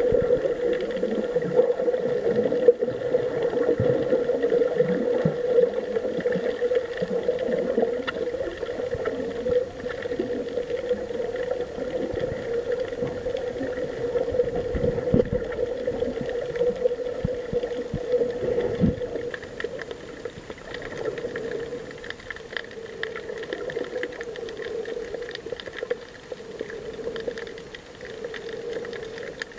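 Muffled underwater sound picked up by a Rollei camera filming below the surface: a steady hum with faint crackling and watery noise, easing a little in the second half.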